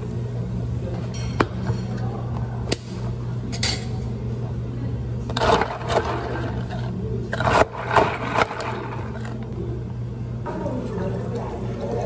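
Sparkling water fizzing over ice in plastic cups, followed by domed plastic lids and straws being fitted: a few sharp clicks, then two clusters of plastic clattering and scraping about halfway through. A steady low machine hum runs underneath.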